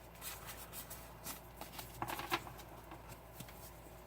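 Pokémon trading cards being handled and flicked through by hand: a run of faint, crisp flicks and paper rustles.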